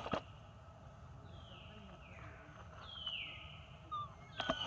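A run of about four high animal calls, each falling in pitch, through the middle. Sharp clicks come at the start and again near the end.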